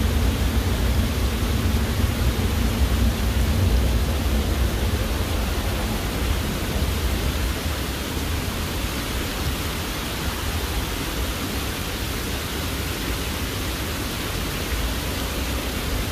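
Water cascading down a stone wall water feature: a steady rushing splash. Under it is a low rumble that is stronger for the first six seconds or so, then eases.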